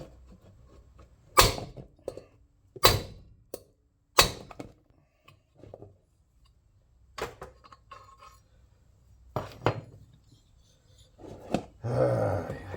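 Hammer blows on a lawnmower engine's flywheel, struck to knock it off the tapered crankshaft where it is stuck fast. Three hard strikes come about a second and a half apart, then three lighter ones, then a short clatter near the end.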